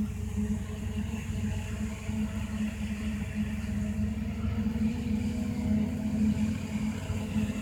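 Distant forage harvester and tractor working a maize field for silage: a steady low diesel-engine drone that swells slightly partway through.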